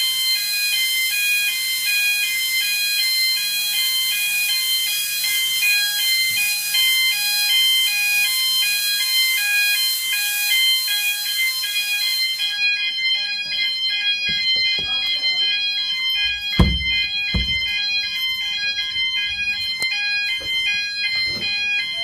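School fire alarm sounding in a test: a loud electronic tone at several pitches at once, pulsing on and off in a steady rhythm. A loud hiss over it cuts off suddenly about twelve seconds in, after which a few knocks and two heavy thumps are heard under the alarm.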